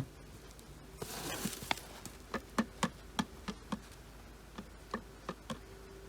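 Electric steering rack of a Nissan X-Trail T31 being rocked by hand, giving a string of irregular sharp knocks, two to four a second: the play of a failed rack that wobbled while driving.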